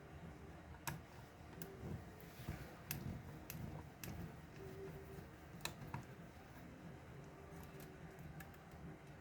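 Faint, irregular clicks and light taps of small parts and hand tools being handled while a Nao robot is taken apart, over a low steady hum.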